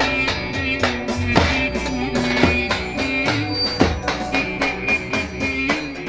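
Live Roman havası dance music from a wedding band: a reedy melody line over repeated strikes of a large davul bass drum.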